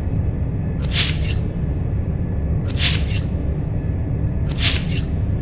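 Flamethrower: a steady low roar with a hissing blast of flame about every two seconds, three in all.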